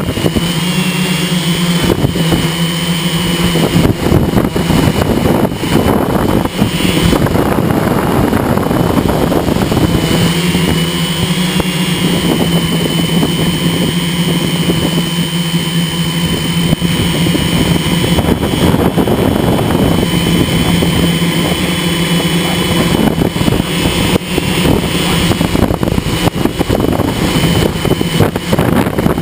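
Multirotor drone's electric motors and propellers running in flight, heard from the camera on board: a loud steady hum and whine over a rushing noise, the hum fading and returning a few times as the drone manoeuvres.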